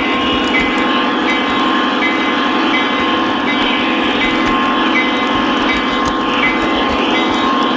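Three-rail O-gauge model train running along its track, heard close up from on board: a steady rolling rumble of wheels on metal rail with a motor whine. A short high tone repeats about every two-thirds of a second.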